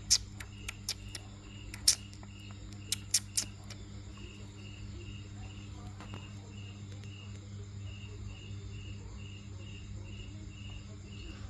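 An insect chirping in short, even pulses, about three a second, over a steady low hum. Several sharp clicks sound in the first three or four seconds.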